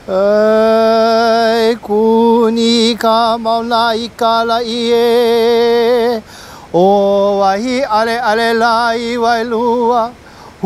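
A single voice chanting unaccompanied in long held notes with a wavering pitch, each phrase scooping up into its first note. It breaks off briefly a little past the middle, then starts a new phrase.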